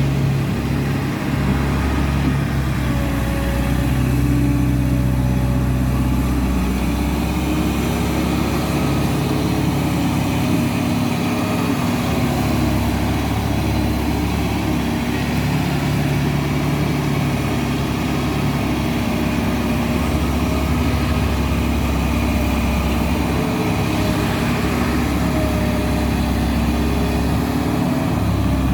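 Diesel engine of a construction loader running steadily under work, its pitch shifting now and then as the engine speed changes.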